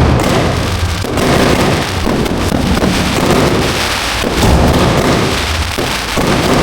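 Fireworks display heard from close range: a dense, loud barrage of shell bursts running together into a continuous rumble, with a rain-like crackle over it.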